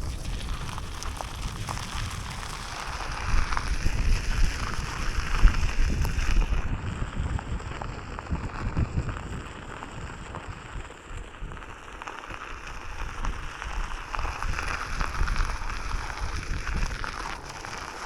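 Wind buffeting the microphone, with rushing noise and a heavy low rumble that swells and eases, as on a moving Onewheel ride.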